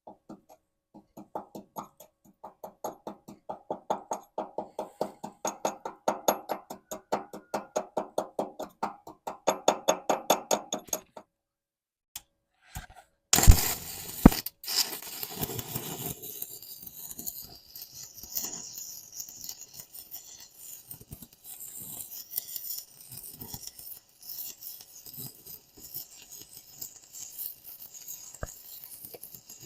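A quick run of regular scraping or tapping strokes, about five a second, growing louder for the first ten seconds or so. After a short pause a stick-welding arc strikes with a sharp crack about halfway through and runs on as a steady crackling hiss, welding cast iron with a cast iron electrode.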